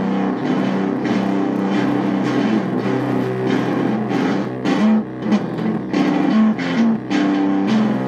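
Stratocaster-style electric guitar playing rock, with sustained ringing notes that give way to sharper, choppy strummed hits in the second half.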